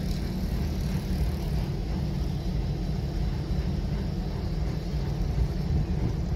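Wind buffeting the microphone outdoors: a steady, rough low rumble with a faint hiss above it.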